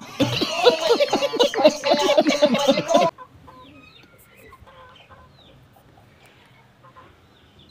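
Chickens clucking and cackling loudly, many short calls overlapping for about three seconds before cutting off suddenly, followed by faint high chirps.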